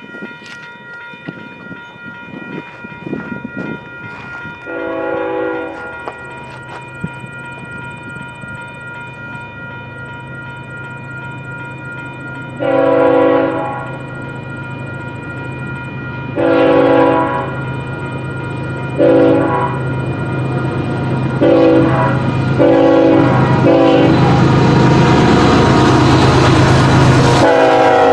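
Locomotive air horn sounding a series of blasts, some long and some short, as a train approaches and grows louder. From about two-thirds of the way in, the train passes close by with a loud steady rumble and wheel clatter, and the horn sounds once more near the end.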